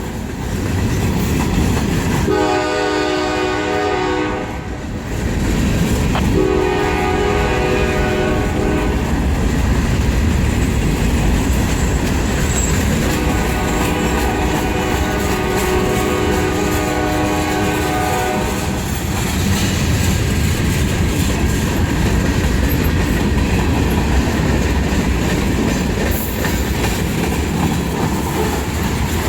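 Diesel locomotive's chime horn sounding three blasts, two of about two seconds and then a long one of about five seconds, over the steady rumble and wheel clatter of a freight train passing.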